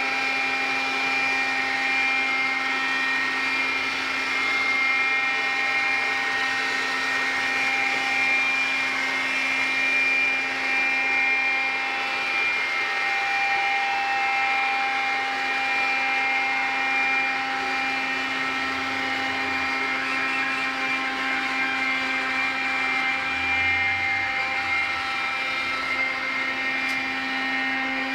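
iRobot Scooba floor-washing robot running as it scrubs wet tile, a steady whine of its brush and wet-vacuum motors made of several steady tones over a hiss.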